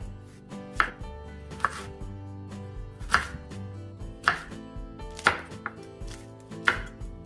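Chef's knife chopping carrot and then green chili on a bamboo cutting board: a sharp knock each time the blade meets the board, the strongest about one a second.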